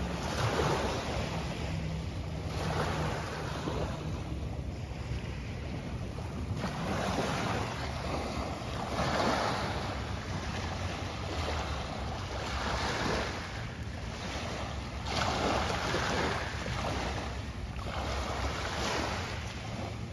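Small waves washing onto the shore in a surge every few seconds, with wind rumbling on the microphone.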